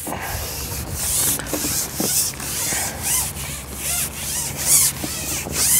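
A long carbon match-fishing pole being shipped out hand over hand, its sections sliding through the hands with a run of rubbing swishes about twice a second.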